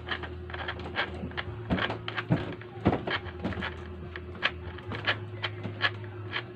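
Irregular light clicks and ticks, a few a second, as a metal threaded screw is turned by hand into the carpeted base of a cat scratching post, over a faint steady low hum.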